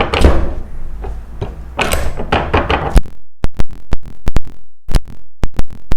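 A series of sharp knocks and clicks. The first half is denser and noisier; the second half is about a dozen clean, separate cracks at uneven spacing with near silence between them.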